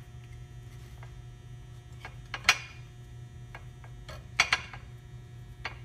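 Pan and spatula clicking and knocking against a plate as an omelet is rolled out of a nonstick pan: a few light taps, the loudest about two and a half seconds in and a quick double knock a little past four seconds, over a steady low hum.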